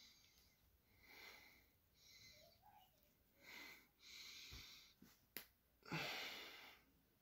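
Quiet, soft breathy puffs close to the microphone, coming every second or so, the loudest about six seconds in, with one sharp click a little before it.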